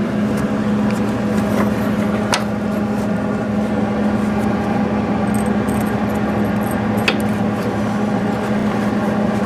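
Stick welder humming steadily, with a few sharp clicks as the rod is touched to the subframe. The ground clamp is not hooked up, so no proper arc is struck.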